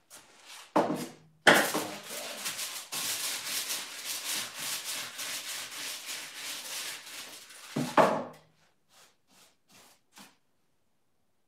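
A paint roller worked back and forth in a foil-lined paint tray to load it: about six seconds of rhythmic rubbing, with a knock just before it starts and another as it stops.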